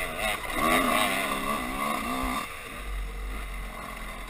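Dirt bike engine heard from on board, revving up and down in quick sweeps through tight turns. The engine noise falls away about two and a half seconds in, leaving a low rumble.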